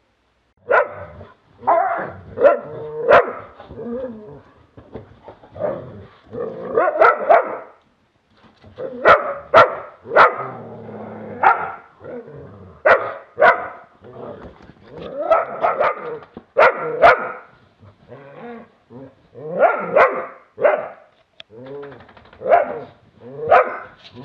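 Galgo and sloughi dogs play-fighting, growling and barking in repeated short bursts, with a few sharp knocks mixed in. It starts about a second in, after a moment of quiet.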